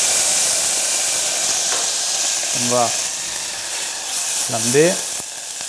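Cognac sizzling and hissing as it hits a very hot stainless saucepan of oil-toasted crushed black pepper, loud at first and slowly dying down.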